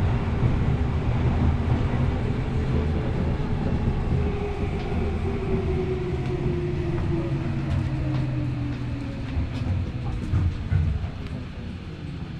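Tokyo Metro Hibiya Line subway train heard from inside the car as it brakes into a station: steady running noise with the traction motor whine falling in pitch, easing off near the end.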